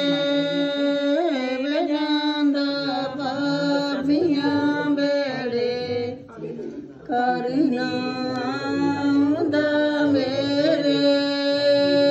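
Unaccompanied female singing of a Punjabi wedding folk song (lok geet), in long held notes with a short break for breath about six seconds in.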